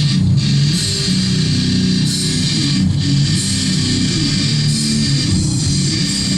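Heavy metal music with distorted electric guitar and bass.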